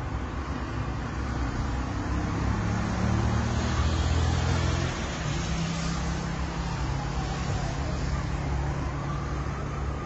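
Road traffic with a low vehicle engine rumble, loudest about three to five seconds in. From about halfway, an emergency siren wails, its pitch sliding slowly down, back up and down again.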